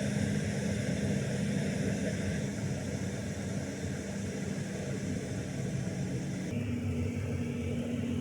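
Chinese diesel air heater running steadily on a low setting, its fan and burner giving a continuous hum and hiss. About two-thirds of the way through, the hum shifts slightly in pitch and the hiss drops.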